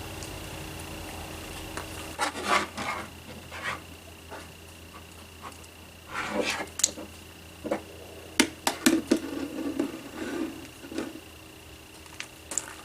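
Scattered knocks, scrapes and rubs of hard objects being handled and set down, over a faint steady hum.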